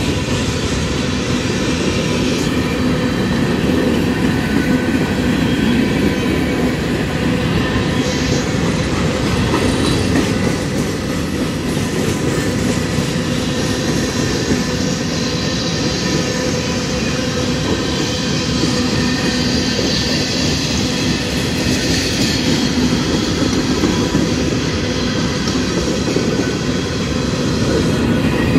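Freight train of covered grain hopper cars rolling past close by: a steady rumble of steel wheels on the rails, with faint steady high tones over it.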